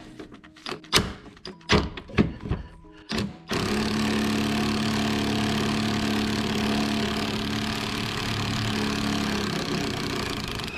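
Metal tool clicks and clanks as a socket and ratchet are worked onto a tight bumper-beam bolt. At about three and a half seconds a loud, steady rushing noise starts suddenly and holds.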